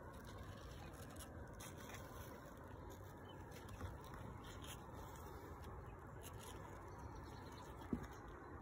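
Faint, steady background hiss with two soft knocks, a small one about four seconds in and a sharper one near the end.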